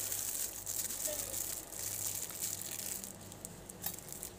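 Thin plastic bag crinkling and rustling in the hands as a block of mushroom spawn is pulled out of it, with many small rapid crackles.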